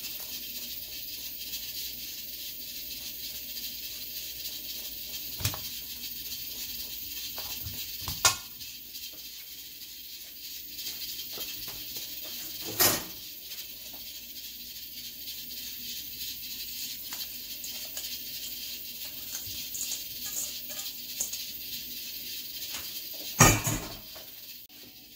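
Steady background hiss with a few short knocks and thuds as ground pork and crumbled tofu go into a stainless steel mixing bowl. The loudest knock comes near the end.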